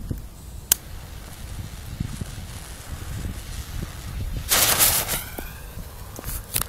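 A lighter clicks about a second in; a few seconds later the green visco fuse of a mini-shell mortar tube catches and hisses loudly for under a second, then settles. Low rumble of wind and handling on the microphone underneath.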